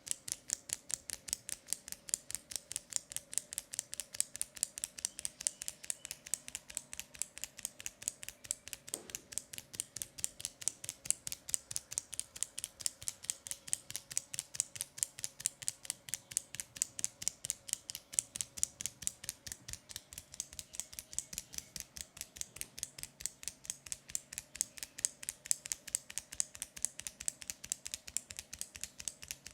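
Rapid, even, crisp clicking, about five clicks a second without a break, made as an ASMR trigger.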